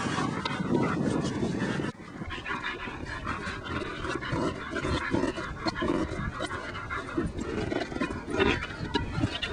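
German Shepherd panting hard in quick repeated breaths during rough play, with scattered clicks and knocks.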